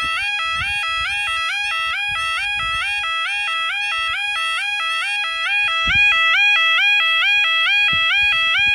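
Level crossing audible warning alarm sounding its repeating rising two-tone yodel, about two to three cycles a second, while the barriers are down for an approaching train. It gets a little louder from about six seconds in, and a few low thumps sound underneath.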